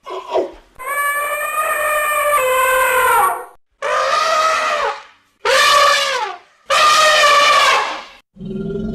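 Asian elephant trumpeting: four loud trumpet calls, the first the longest, each ending in a drop in pitch.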